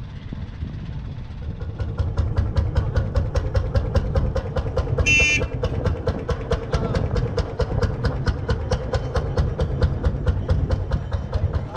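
Lanz Bulldog tractor's single-cylinder hot-bulb two-stroke engine chugging as it drives past, its exhaust beats rapid and evenly spaced. A brief high toot sounds about five seconds in.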